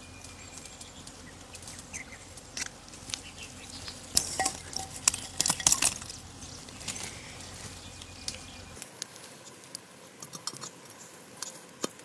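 Charcoal and kindling clinking and clattering as they are dropped into a clay stove. A dense run of knocks and clinks comes about four to six seconds in, with scattered light ticks before and after.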